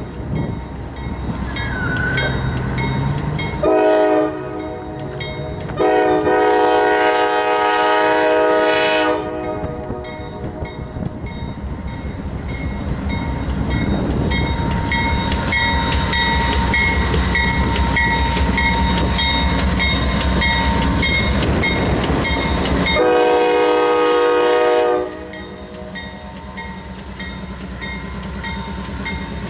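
CSX freight train's diesel locomotives sounding their air horn for a grade crossing: a short blast about four seconds in, a long blast from about six to nine seconds, and another blast near the end. Between the blasts the locomotives' diesel engines and wheels rumble steadily, growing louder as the lead units pass close by. A crossing bell rings steadily in the background.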